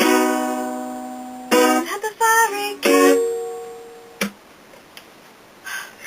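End of a song on a plucked string instrument. A chord rings out, then comes a short improvised sung phrase over a few plucked notes about a second and a half in. A final note fades away by about four seconds, leaving a few small clicks.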